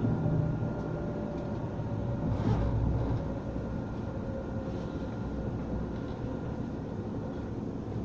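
Inside a Nottingham Express Transit Alstom Citadis tram under way: a steady low rumble of the tram running on the rails. A faint steady whine from the drive fades out near the end.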